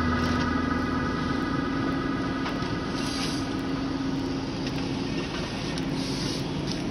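Engine of a tracked log-processing machine running steadily under working load while its boom and processing head move, with a steady drone throughout.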